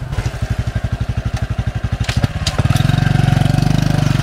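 Motorcycle engine running with an even, pulsing putter, then becoming louder and smoother about two-thirds of the way through.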